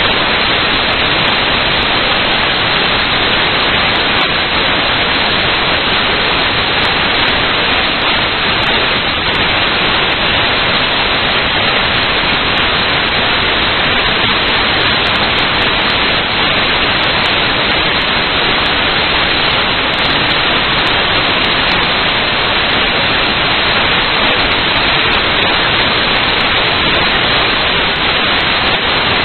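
Loud, steady hiss of static, even and unchanging, with no motor whine or other sound standing out above it.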